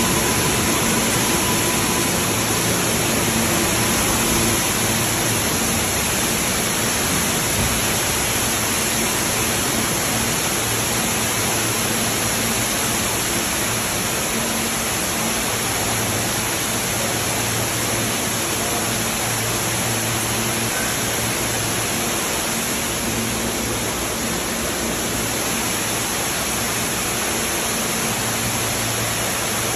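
Floodwater pouring in a heavy sheet from a subway station ceiling onto a stopped train and the platform: a loud, steady rush of falling water. A faint low hum sits underneath.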